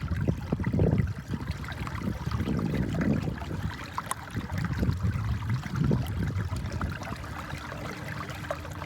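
Water rushing and lapping against a kayak's hull as an electric trolling motor pushes it upstream against a river current at speed 3, in uneven low swells. A faint steady hum comes in near the end.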